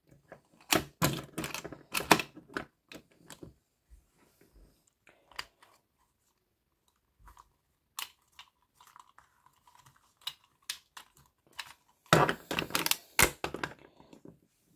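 Plastic clicks, snaps and rattles of an Optimus Primal action figure's joints and parts as it is folded by hand from robot into gorilla form. Dense clusters of clicking come about a second in and again near the end, with scattered single clicks between.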